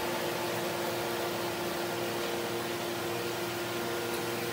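A steady machine hum with an even hiss, holding one pitch throughout.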